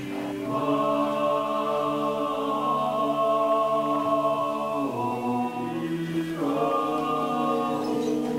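Slow, chant-like choral music: long held chords that change a few times.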